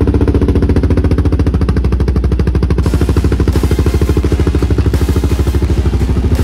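Kawasaki KLX single-cylinder four-stroke dual-sport motorcycle with an aftermarket exhaust, its engine idling steadily with a fast, even beat of exhaust pulses.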